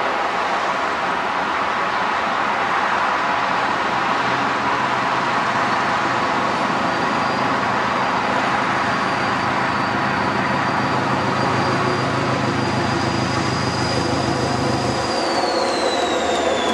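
An NIR 80 Class diesel-electric multiple unit, an English Electric-engined 'thumper', running towards the listener with a steady low engine drone and a high whine. About fifteen seconds in, the engine drone stops and the whine slides down in pitch as the train coasts into the platform.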